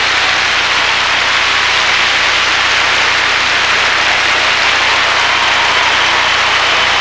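Large crowd giving a standing ovation: dense, steady applause.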